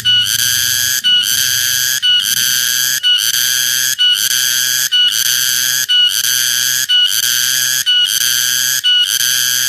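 Cicada calling loudly: a shrill, steady buzzing tone broken by a short gap about once a second.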